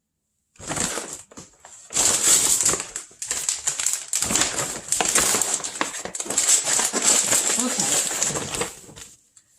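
Rustling and crinkling of grocery packaging and bags as items are handled, loud and uneven, stopping shortly before the end.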